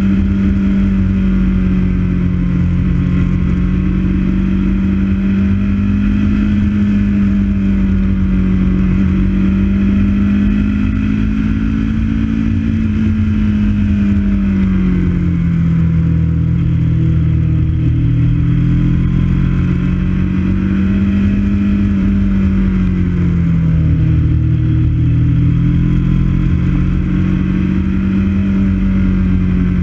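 Motorcycle engine running on the move, its pitch rising and falling gently several times as the throttle and speed change, over a steady low rumble of wind and road noise.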